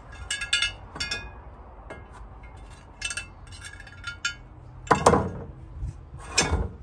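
Light, ringing metal clinks as a cast iron Dutch oven lid and its hanging hardware are handled over a water-filled electrolysis tank, followed by two louder, rougher knocks near the end.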